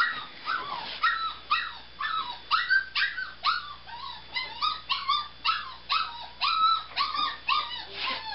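Seven-week-old Nova Scotia Duck Tolling Retriever puppy whining and yipping over and over, about two high-pitched cries a second.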